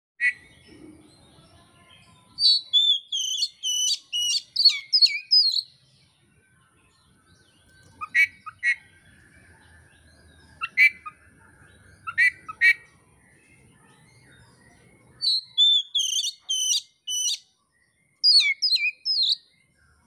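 Oriental magpie-robin (kacer) singing: loud bouts of quick whistled and chattering phrases, one after about two seconds and two near the end, with single sharp calls in between. A faint steady high tone runs underneath.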